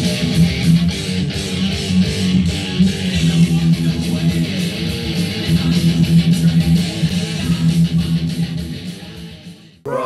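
Electric guitar playing a chugging metal riff with a fast steady pulse, fading out near the end.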